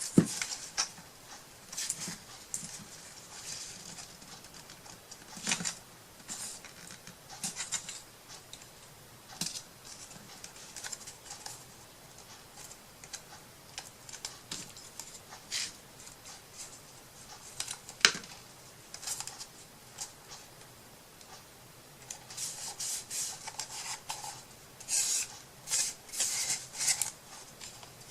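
Scattered light rustling, scratching and tapping of paper and small craft tools being handled on a wooden piece, with one sharp click about 18 seconds in and a busier run of rustles near the end.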